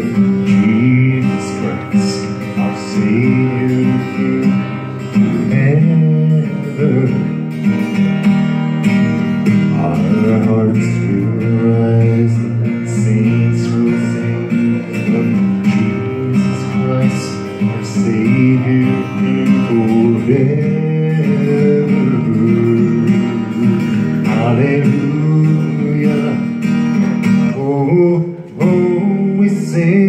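Steel-string acoustic guitar strummed in a steady rhythm, playing an instrumental passage of a gospel song.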